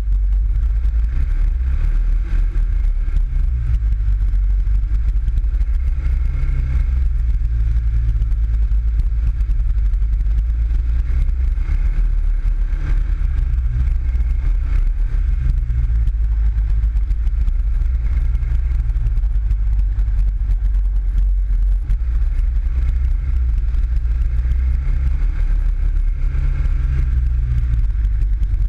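PGO 500i off-road buggy's engine running under way, heard from on board: a steady low drone whose pitch rises and falls a little as the throttle changes.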